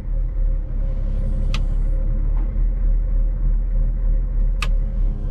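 Volvo L60E wheel loader's diesel engine running steadily, heard from inside the cab, with two short sharp clicks about three seconds apart.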